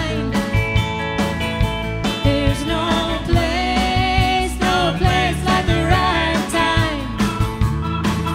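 Music: a country-style song with guitar and a steady beat.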